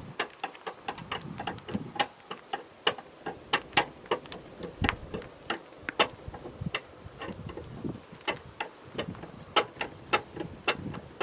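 Irregular clicking and tapping, several sharp clicks a second and uneven in loudness, typical of hand tools being worked during a tire change.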